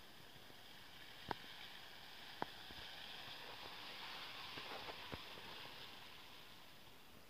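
Faint hiss of a Mitsubishi Pajero 4x4 pushing through mud and muddy water. It swells as the vehicle comes closest and then fades, with a few sharp clicks along the way.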